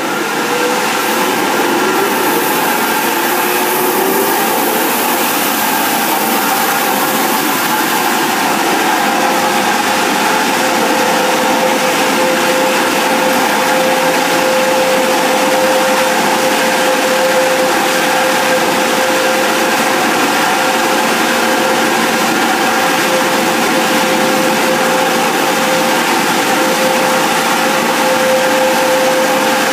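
Car wash air dryer blowers running steadily, a loud rush of air with a steady whine over it; the blowers come up to full speed in the first moments and then hold.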